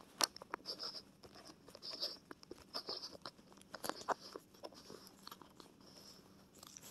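Faint handling noise on the phone's own microphone: scattered small clicks, taps and scrapes as the phone is seated and adjusted in the POV mount's phone holder.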